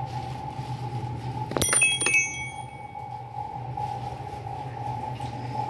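Small brass bells hanging from a wooden tree-shaped stand jingle about one and a half seconds in: a quick cluster of several strikes that ring on briefly. A steady low hum continues underneath.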